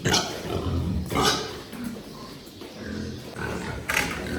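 Pigs grunting, with short, louder squeals breaking in about three times.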